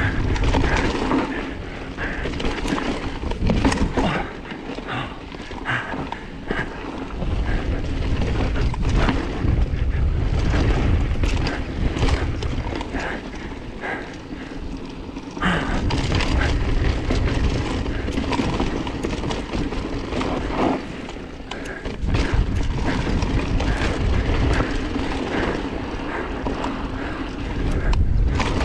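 Enduro mountain bike riding fast down a rocky dirt trail: tyres rolling and crunching over dirt and stones, with the bike knocking and rattling over bumps. Long stretches of heavy wind rumble on the microphone come and go.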